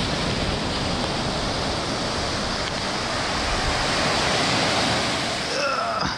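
Surf washing on the beach and wind buffeting the microphone: a steady rushing noise that swells a little about four seconds in. A brief higher sliding sound comes near the end.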